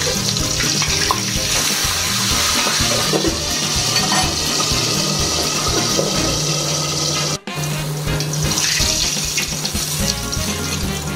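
Whole pomfret sizzling steadily as it shallow-fries in hot oil in a wok, turning crispy; the sizzle cuts out for a moment about seven seconds in.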